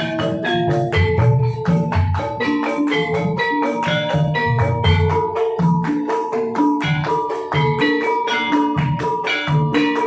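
Gamelan ensemble playing a gendhing: bronze metallophones struck with mallets in a steady run of ringing notes, over low drum strokes.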